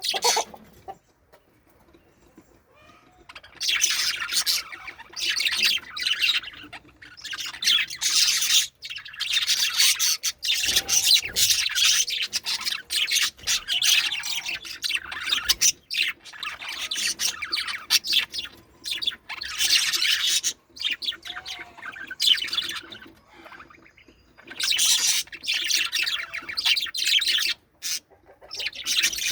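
Budgerigars chirping and chattering in high-pitched bursts of a few seconds, with short pauses between.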